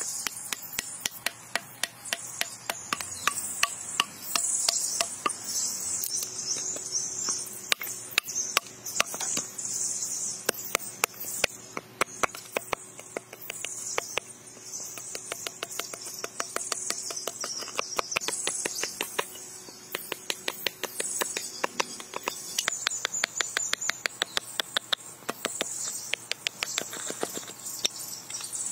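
Sharp, irregular knocks of a heavy blade chopping and splitting wood into planks, coming several a second at times. Underneath, a steady chorus of insects rises and falls in swells.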